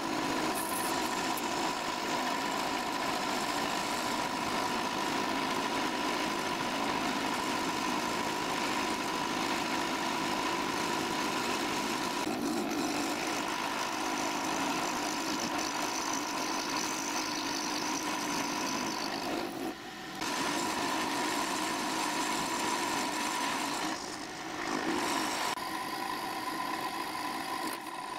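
Milling machine running with its end mill cutting the sides out of a metal coupler block clamped in a vise: a steady whine with a cutting hiss, dipping briefly twice in the second half.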